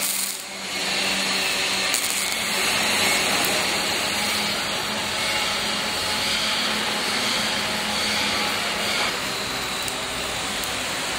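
Steady hissing noise of a robotic arc welder laying a weld, with a low steady hum underneath.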